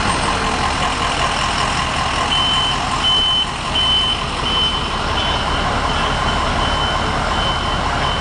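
A vehicle's reversing alarm beeping, a single high tone about one and a half times a second, starting a couple of seconds in, over a running engine.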